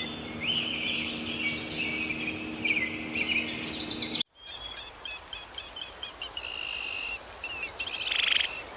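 Birds chirping over a steady low hum, then, after an abrupt cut a little over four seconds in, a steady high insect-like trill with rows of short repeated chirps.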